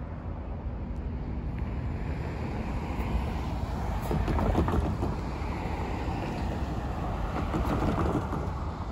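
Road traffic rumble with wind on the microphone; a car drives past close by about four seconds in, and the noise swells again near the end.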